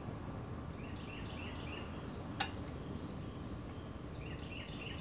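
A single sharp metallic click about two and a half seconds in as the small go-kart engine is worked on by hand, over faint chirping in the background.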